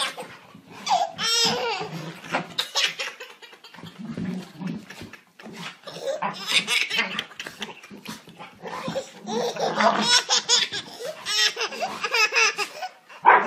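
A baby laughing hard in repeated bouts of quick, breathy laughs, with short pauses between them.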